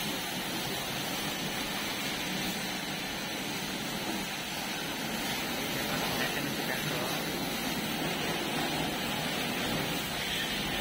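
Steady hiss and splatter of a high-pressure water jet spraying onto a tractor's wheel and body.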